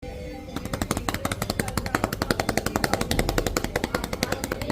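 Rapid manual chest percussion: cupped hands clapping on a patient's chest, about eight to ten strikes a second, starting about half a second in. It is the airway-clearance technique used to loosen lung secretions.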